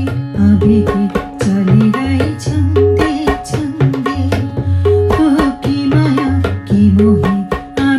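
Song accompaniment led by tabla: a steady repeating pattern with deep bass strokes about once a second and sharper strokes between them, under a melodic line.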